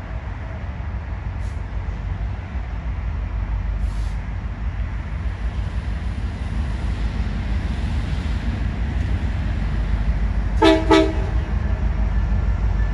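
Locomotive horn sounding two short blasts about two thirds of the way in, over a low rumble that grows steadily louder.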